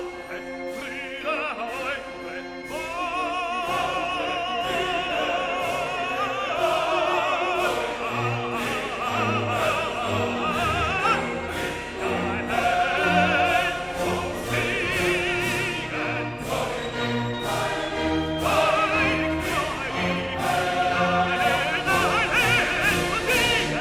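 Classical vocal music: operatic singing with a wide vibrato over orchestral accompaniment, with a steady pulse throughout.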